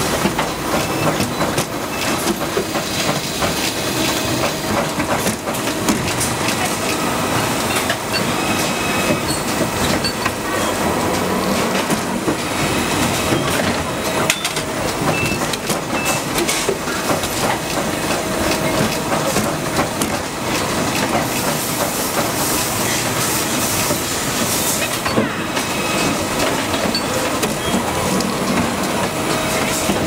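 Steady clattering din of stator-production machinery, dense with small metallic clicks and knocks and a light hiss, with faint short tones now and then.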